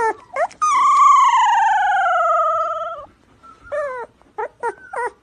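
A husky-type dog vocalizing. A few short whines open the clip, then one long howling whine of about two seconds slides slowly down in pitch, and a few more short whines follow near the end.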